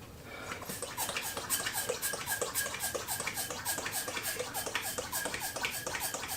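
Latex twisting balloon squeaking in a fast run of short rubbing squeaks, about four or five a second, as it is twisted into a balloon-animal wing.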